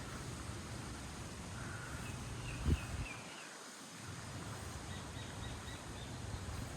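Small birds chirping: a few chirps about two seconds in, then a quick row of about five short high chirps a little after five seconds. Under them runs a steady low rumble, with one short thump near the middle.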